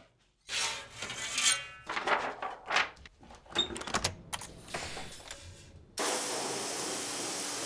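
Clicks, knocks and scraping as a screen-printing press is worked by hand at its metal toggle clamps. About six seconds in, a pressure washer starts spraying a screen in a washout booth with a steady hiss of water.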